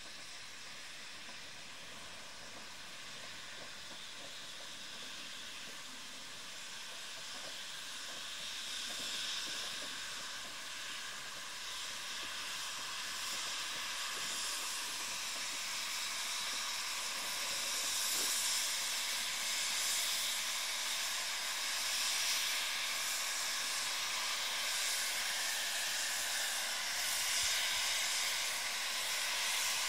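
Steam hissing from Rio Grande K-37 Mikado steam locomotive 497, steady and growing gradually louder over the first two thirds. Near the end, steam is jetting from the open cylinder cocks at the front of the engine.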